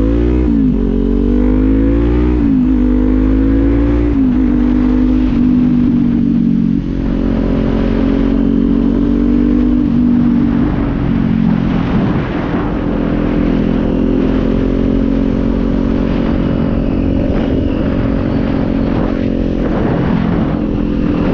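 Kawasaki Z400 parallel-twin engine, fitted with a Leo Vince aftermarket exhaust, accelerating through the gears: three quick upshifts in the first four seconds, each a rising pitch that drops at the shift, then a steadier cruise with small changes in revs. A low wind rumble runs under it.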